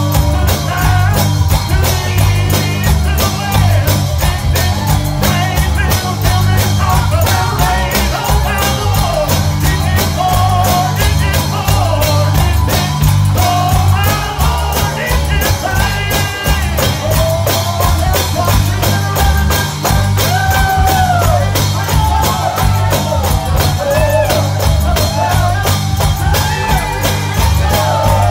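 Live gospel band playing an up-tempo number, with a steady bass line, fast tambourine-led percussion and a sliding melody line above.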